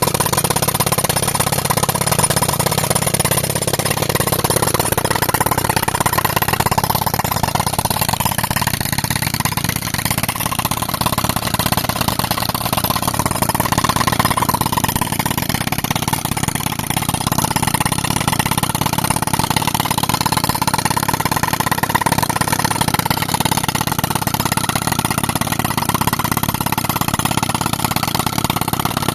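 Tractor engine running steadily while driving an air compressor for rock breaking.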